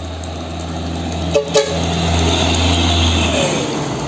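Loaded dump truck driving past close by, its diesel engine and tyres building to their loudest as it goes by, with two short horn toots about a second and a half in.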